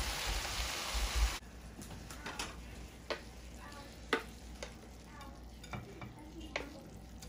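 Chopped bok choy and onion sizzling in a hot frying pan while being stirred with a wooden spoon; the sizzle stops abruptly about a second and a half in. After that come scattered light scrapes and taps as the greens are pushed out of the pan onto a ceramic plate.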